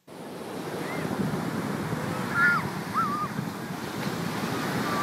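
Ocean surf breaking and washing up a sandy beach, with wind on the microphone. A few short, high rising-and-falling calls sound over it.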